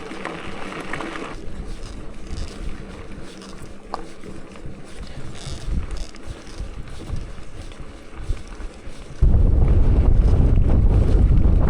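Wind buffeting the microphone, faint and gusty at first, then suddenly much louder about nine seconds in, a heavy low rumble typical of riding into the wind on a bicycle.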